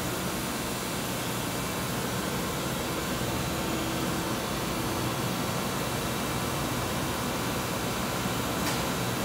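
Steady machinery hum and hiss in a machine shop, with faint steady low tones underneath and one brief click near the end.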